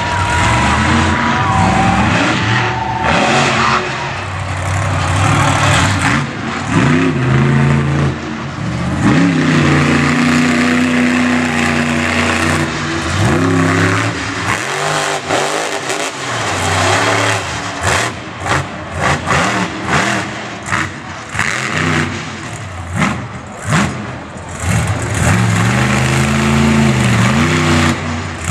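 Monster truck engine revving hard, its pitch rising and falling again and again, with a run of short, choppy throttle blips past the middle.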